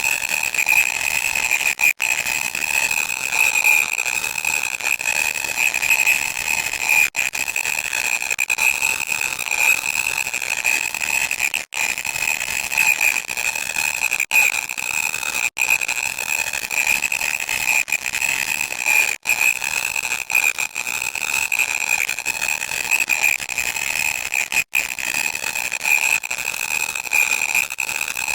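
Loud, harsh electronic noise: a continuous shrill buzzing tone over hiss, held steady for the whole stretch with a few split-second dropouts.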